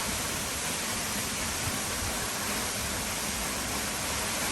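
Steady rush of a waterfall, an even wash of noise without breaks.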